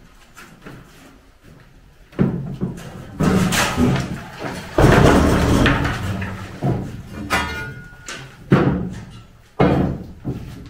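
Timber formwork planks being knocked loose and dropped while shuttering is stripped: a series of wooden clatters and thuds, about seven, each dying away with some echo, the heaviest about five seconds in.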